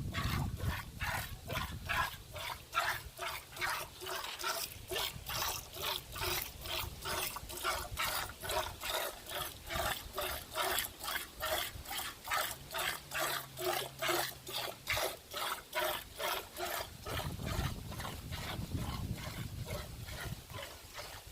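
Cow or buffalo being milked by hand: milk squirting into a pail in a steady rhythm, about two squirts a second.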